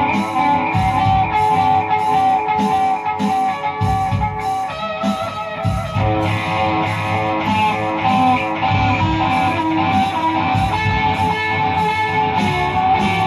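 Electric guitar playing over music with a steady beat.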